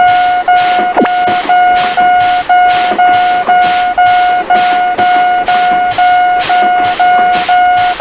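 Railroad crossing warning bell ringing steadily, an even electronic ding about twice a second. A brief sliding sound cuts across it about a second in.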